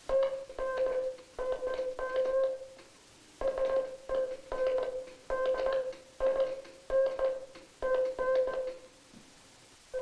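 Morse code sidetone keyed on a hand telegraph key: a steady mid-pitched beep sent in uneven, mostly long elements with only short gaps between them. The dits and dahs run together, the sign of a key whose gap is set too narrow or whose spring is too loose.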